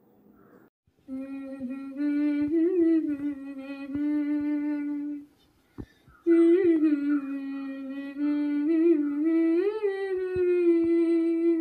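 A single voice humming a slow melody, in two long held phrases with a short break between them.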